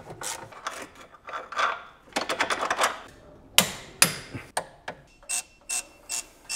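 Sharp clicks and knocks of metal hand tools being handled and set down. Two louder knocks come about halfway through, then four evenly spaced clicks near the end.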